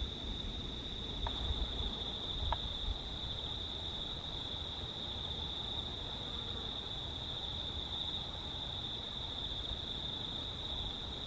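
A steady, high-pitched chorus of insects chirring without a break. Under it is a low rumble, with two faint clicks a second or so apart in the first few seconds.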